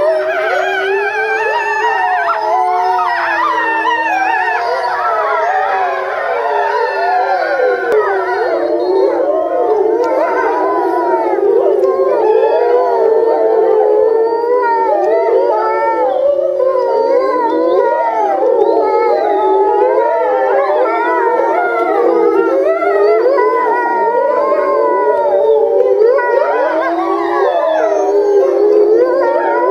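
A pack of European gray wolves howling in chorus: many long howls overlap, each voice gliding up and down in pitch and weaving around the others, without a break.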